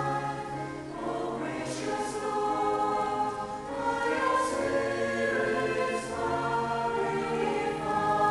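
A mixed choir of men's and women's voices singing slow, sustained chords together, with a few soft 's' consonants now and then.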